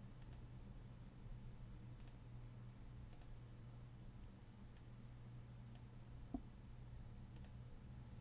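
Faint computer mouse clicks, several of them quick double clicks, over a low steady hum. One short low thump comes about six seconds in.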